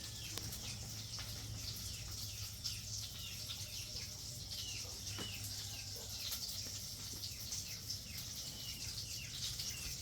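Small birds chirping: many short, falling chirps repeating one after another over a steady high hiss and a low hum.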